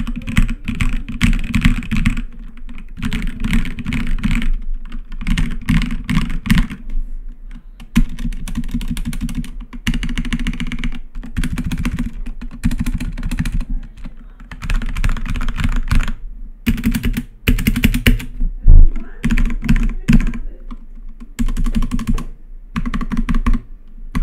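HyperX Alloy Origins Core mechanical keyboard with HX Red linear switches being typed on: fast runs of key clacks broken by short pauses, with one louder knock about three-quarters of the way in.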